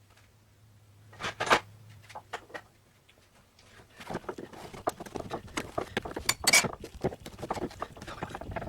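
Metal hand tools clinking and scraping against car-door parts while prying at a stuck handle clip: a couple of sharp clinks about a second and a half in, then a busy run of clicks and rattles from about four seconds on.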